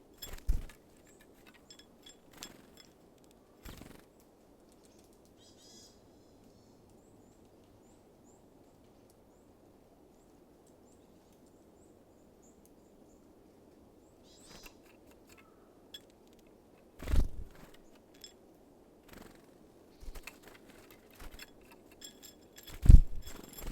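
Small birds at a feeder: a few sharp knocks and scattered lighter taps, with faint, short, very high chirps in between. There are three loud knocks, about half a second in, about 17 s in and about 23 s in.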